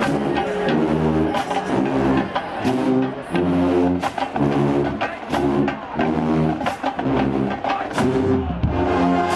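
College marching band playing a stand tune: loud sustained brass chords in short repeated blocks, punctuated by regular percussion hits about every two-thirds of a second.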